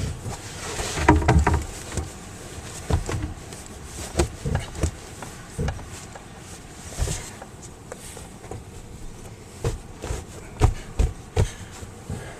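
Irregular knocks, clunks and thuds of the camper's seat and bed panels being moved and set down as the seating is made up into a double bed, with a louder burst of thumping about a second in.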